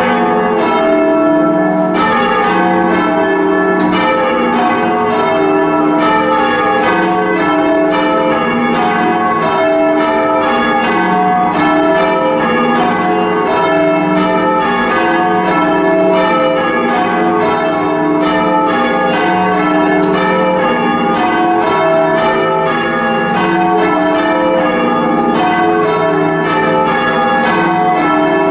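Heavy ring of four church bells being rung full circle, a continuous run of loud, evenly spaced strikes whose tones ring on and overlap.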